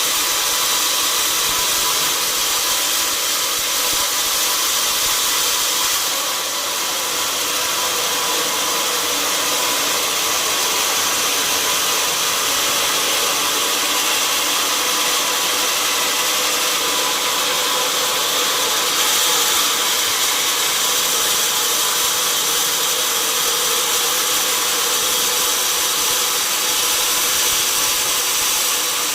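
Sawmill saw running steadily while cutting through oak, a continuous mechanical whine over a hiss of cutting noise, dipping slightly about six seconds in.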